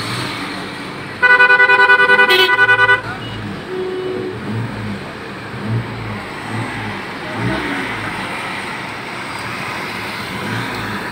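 A vehicle horn sounds loudly for about two seconds, starting about a second in, several notes at once in a rapid pulse. Around it, the steady rumble of a vehicle driving heard from inside its cab.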